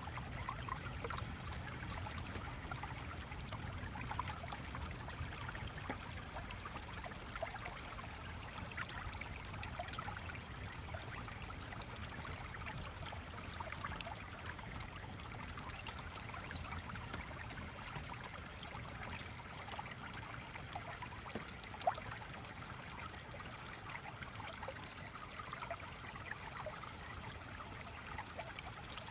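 Gently flowing stream: a steady trickling of water, with one sharper click about 22 seconds in.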